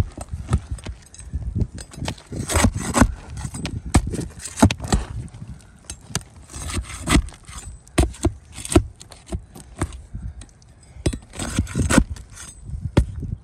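Irregular scraping and sharp metallic clicks of a hand tool working roofing nails loose from asphalt shingles.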